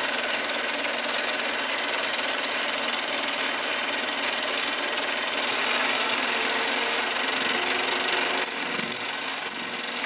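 Mini lathe running and cutting a bar of W1 water-hardened steel, a steady cutting noise. Near the end there are two loud, high-pitched squeals.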